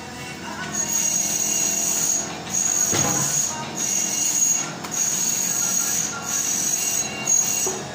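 Steel plastering trowel scraping wet plaster across a concrete wall in repeated strokes, about one a second, each with a high squeal. A single knock about three seconds in.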